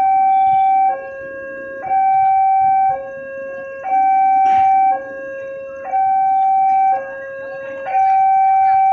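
Railroad level-crossing warning alarm sounding its two-tone electronic signal: a louder high tone and a quieter lower tone alternating about once a second, warning that a train is approaching with the barriers down.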